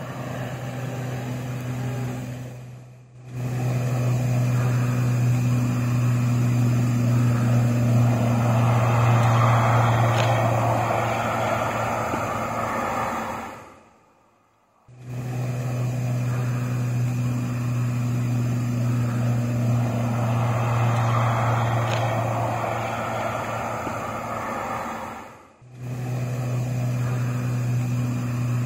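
Steady, loud jet airliner engine roar with a strong low hum. It cuts out briefly about every eleven seconds, and the same stretch of sound seems to repeat.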